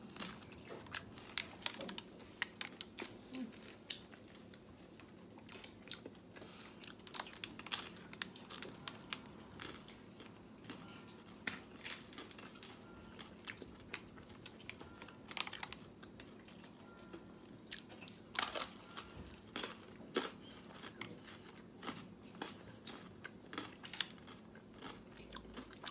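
Close-up chewing of a crispy thin pizza crust: irregular crunches and wet mouth sounds, with a louder crunch a little after eighteen seconds.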